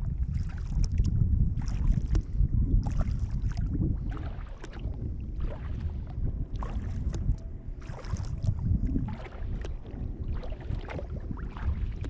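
Double-bladed kayak paddle dipping into the water and splashing about once a second, over a steady low rumble of wind on the microphone.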